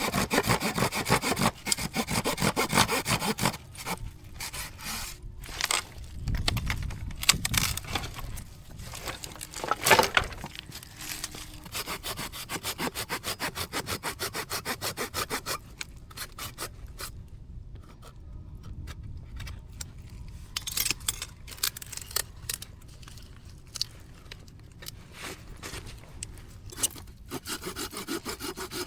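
Hand saw cutting through wood in quick rhythmic strokes. It stops and starts again several times, with a single louder knock about ten seconds in.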